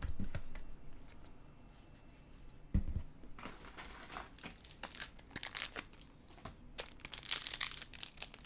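Foil trading-card pack wrapper crinkling as it is handled and torn open, in irregular crackles that thicken toward the end, with a dull thump about three seconds in.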